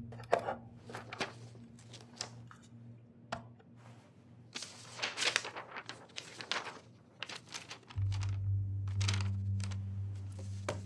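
Push-buttons on a desk telephone clicking as a number is dialled, with some paper rustling, over a faint low hum. The hum gets louder and steady about eight seconds in.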